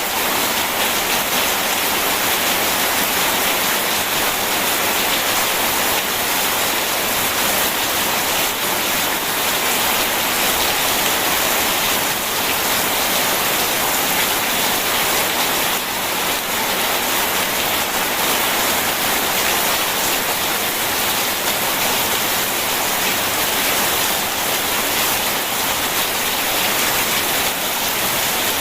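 Steady, even hiss of heavy rain mixed with rushing water, unbroken throughout.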